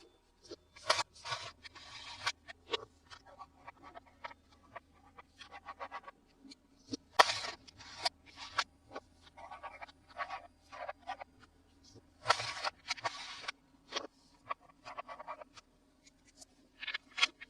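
Hands handling plastic toys and their packaging: irregular sharp clicks and taps with short scratchy rustles and scrapes, the loudest clusters about one, seven and twelve seconds in.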